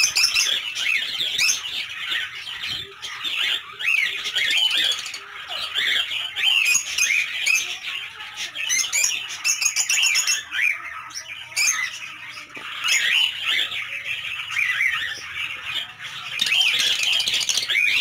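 A colony of lovebirds calling: many short, high calls overlapping without a break.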